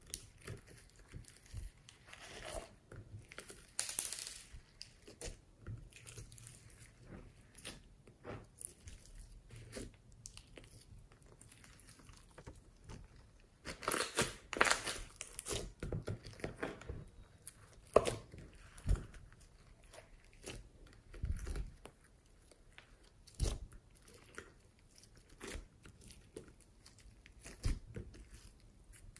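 Hands squeezing, stretching and kneading glossy slime with foam beads worked into it: sticky crackles, pops and little clicks at irregular moments, thickest and loudest about halfway through.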